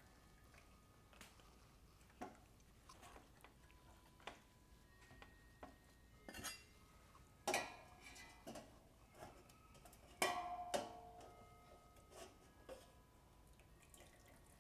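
Metal ladle and tongs clinking and scraping against a stainless steel stockpot as boiled pork hocks are lifted out of the broth. Scattered light clinks, with two louder clanks in the middle, each leaving the pot ringing briefly.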